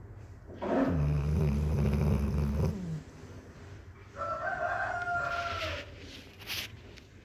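Sleeping Labrador retriever snoring: a loud, low rasping snore about a second in, then a higher, drawn-out tone a few seconds later.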